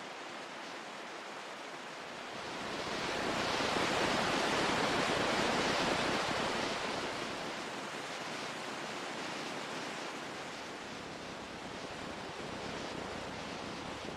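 Ocean surf: a steady rushing wash that swells to its loudest about four to six seconds in, then eases off.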